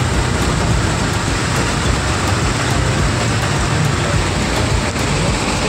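Jeep engine running steadily, heard from inside the open-sided cab, under a constant loud rush of water from the river rapids alongside and rain.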